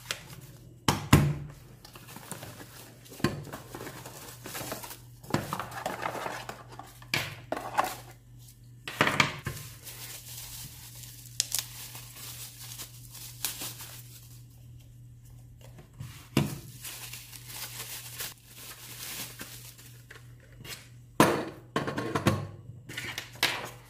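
Hands unwrapping plastic and bubble-wrap packaging from the parts of a wireless cooking thermometer: crinkling plastic with scattered knocks as pieces are set down on a wooden table. A steady low hum runs underneath.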